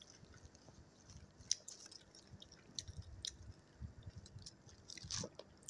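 Faint crackling and crunching of crisp deep-fried jackfruit fritters (bora) being broken open by hand and chewed, with a few sharper crackles scattered through.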